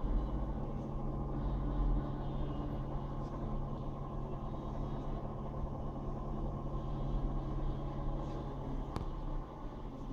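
Steady low background rumble with a faint steady hum, strongest at the very bottom in the first couple of seconds, and one sharp click about nine seconds in.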